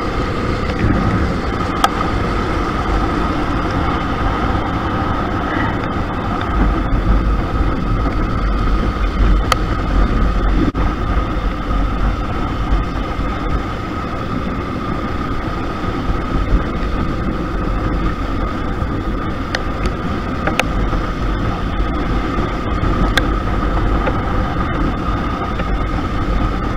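KTM RC 200 motorcycle being ridden at a steady speed, heard from on board: wind buffeting the microphone with a heavy low rumble over the engine's steady running, with a steady high tone throughout.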